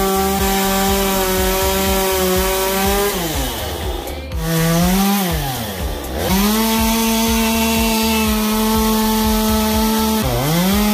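Chainsaw cutting into a log, running at a steady high speed. Its pitch sags and climbs back twice in the middle, and again near the end, as it slows and picks back up.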